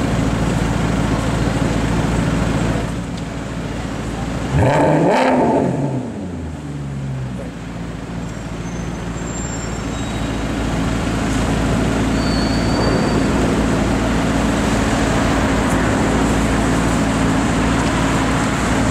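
Maserati GranTurismo S's 4.7-litre V8 idling, with one sharp throttle blip about four and a half seconds in: the engine note climbs quickly, is at its loudest, then falls back to idle. Steady traffic noise runs underneath.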